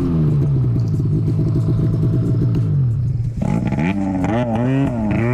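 Snowmobile's two-stroke engine running and easing off, its note falling slightly as the sled slows to a stop. About three and a half seconds in, a higher sound joins in, its pitch rising and falling.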